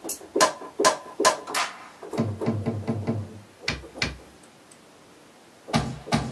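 Drum sounds from a software drum machine, auditioned one hit at a time: a string of sharp separate hits, then a quick run of low pitched hits, then single pairs of hits with a near-quiet pause between them.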